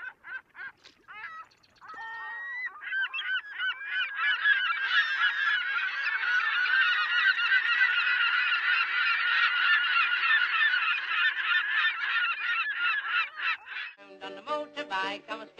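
A large flock of birds calling, with many short overlapping calls, sparse at first and quickly thickening into a dense chorus. Music comes in near the end.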